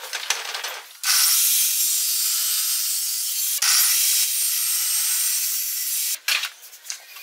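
Table saw blade cutting through a block of wood, a loud steady hiss that starts about a second in, changes briefly about three and a half seconds in, and stops about six seconds in.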